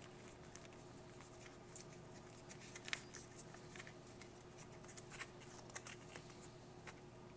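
Faint, scattered crinkles and rustles of a foil-laminate MRE peanut butter pouch being handled in the hands, over a faint steady hum.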